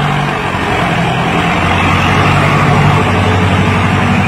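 Ford 6600 tractor's three-cylinder diesel engine running steadily and loudly as the tractor works through loose soil.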